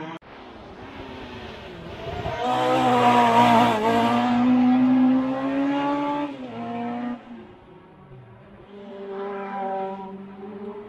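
A race car's engine on a hillclimb run, growing to its loudest over a few seconds as the car takes a hairpin, its pitch dipping and recovering midway. The note drops sharply at a gear change, then comes back fainter and revving up near the end as the car pulls away.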